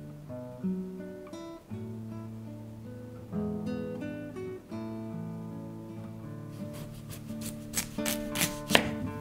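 Plucked acoustic guitar music. In the last few seconds, a knife cuts into a sprouted potato on a wooden board, making a quick run of sharp cutting clicks over the music.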